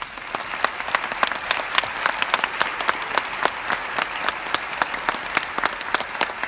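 A large choir applauding: many hands clapping in a dense, steady patter that breaks out at once and keeps going, in a welcome for a guest asked to stand.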